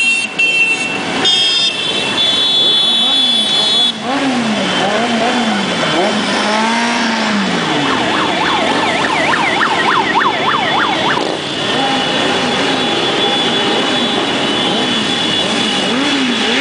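A procession of motorcycles riding past, engines running and being revved up and down. For a few seconds in the middle, a fast warbling, siren-like tone sounds over them.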